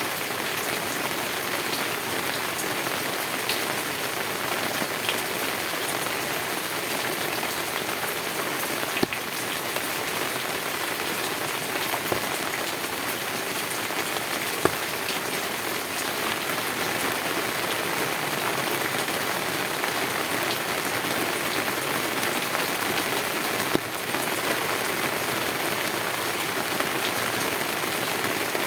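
Heavy rain drumming on a tin roof in a steady dense patter, with a few single louder drop strikes standing out now and then.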